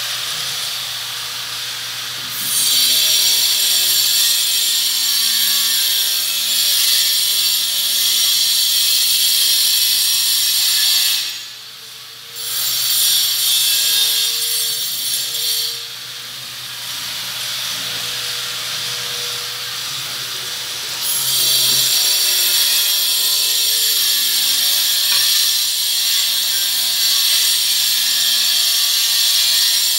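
A loud, steady high hiss that starts about two seconds in, breaks off briefly around eleven seconds, drops back for several seconds after about sixteen seconds, and comes back loud around twenty-one seconds.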